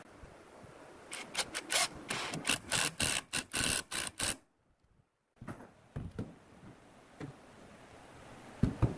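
Cordless drill/driver driving a screw into a pine cabinet rail in a rapid run of short bursts, cutting off suddenly about four seconds in. After that, faint knocks of wooden cabinet panels being handled, and a thump near the end.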